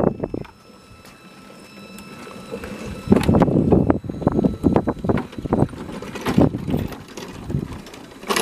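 Electric backyard riding train, a Thomas-style locomotive pulling open wagons, rolling slowly over steel track. Its wheels give irregular clicks and knocks, which get louder from about three seconds in.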